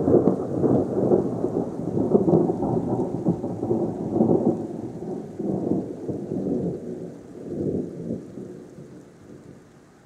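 A long peal of rolling thunder, rumbling unevenly and fading away over about nine seconds, with rain falling beneath it.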